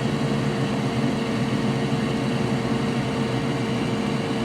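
Steady whir of a small electric fan or blower motor with a constant hum, unchanging throughout.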